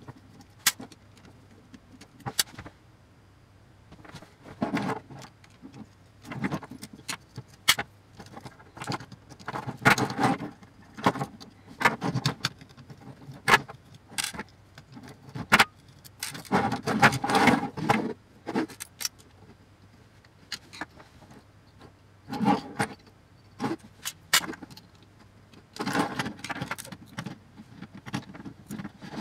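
Handling noise of a metal electronics assembly: irregular clicks, knocks and rattles as a metal chassis plate fitted with small motors and gears is turned over, worked on and set down on a wooden table. The clatter comes in bursts, with longer rattling stretches about ten seconds in and again around seventeen seconds.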